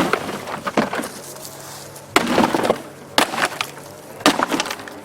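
Plastic housing of a small RV washing machine being smashed apart: about five sharp cracking hits, one of them about two seconds in trailing into a brief splintering crackle.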